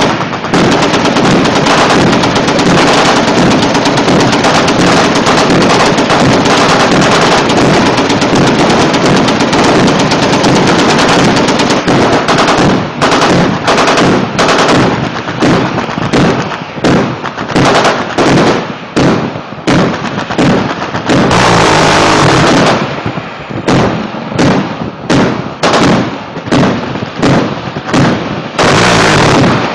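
Shipboard naval guns firing: a long stretch of continuous automatic fire for about the first twelve seconds, then separate shots at an even pace, a little over one a second, broken twice by short continuous bursts.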